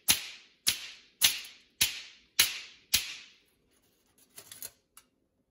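Two steel spheres clacked together through a sheet of aluminum foil: six sharp metallic clicks about half a second apart, each ringing briefly. A few faint crinkles of the foil near the end.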